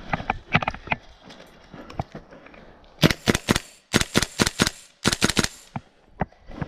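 Airsoft rifle firing three quick bursts of sharp cracks at about ten shots a second, a short pause between each burst.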